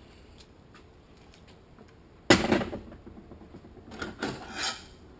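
Metal tools and transmission parts handled on a steel workbench: one loud metallic clatter a little over two seconds in, then a run of lighter clinks and scrapes near the end.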